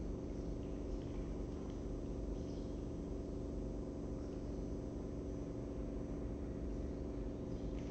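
Steady electrical hum made of several constant low tones, with a few faint ticks now and then.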